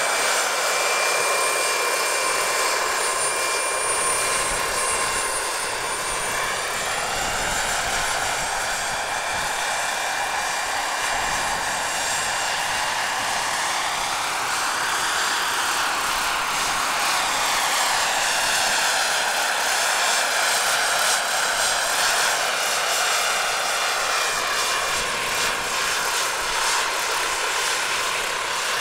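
Radio-controlled scale Bell 47G-3B-1 model helicopter in flight: a steady whine of motor and rotors that sweeps up and down in pitch several times as it manoeuvres.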